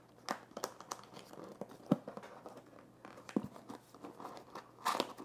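Fingers picking and peeling at the packing tape of a cardboard box being opened by hand: scattered crinkles, scratches and sharp ticks, with a louder tearing rustle near the end.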